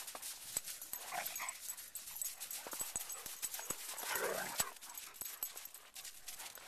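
A dog whining briefly, about a second in and again around four seconds in, over a run of small crunching steps on snow.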